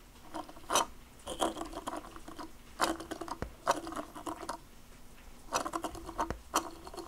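A 3D-printed plastic figure being turned by hand, its square base scraping and sliding on a wooden desk and fingers rubbing its ridged printed surface, in a string of short scrapes and taps.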